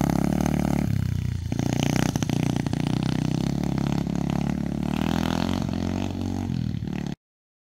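X-Pro Storm 125cc pit bike's single-cylinder four-stroke engine, freshly fitted with a big bore kit and race head, running as the bike rides away and gradually getting quieter. The sound cuts off abruptly near the end.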